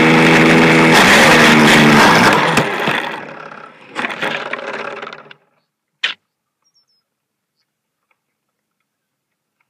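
Small airplane's engine running steadily, changing pitch about a second in and cutting out as the plane ends up on its back in the grass. A burst of rustling and scraping follows, then one sharp click, then near silence.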